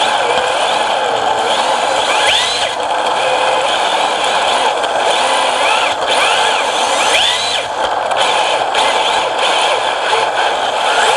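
Electric motor and gear drive of a radio-controlled drift car, heard up close from on board, whining up and down in pitch again and again with the throttle over a steady rushing noise.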